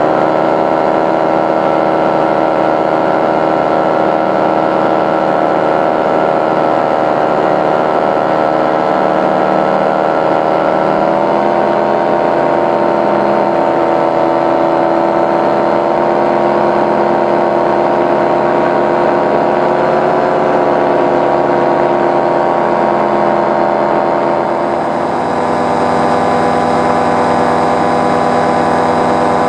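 Powered paraglider's paramotor engine and propeller running steadily in flight. Its pitch shifts up slightly about a third of the way in. Near the end it briefly eases off and settles into a different tone.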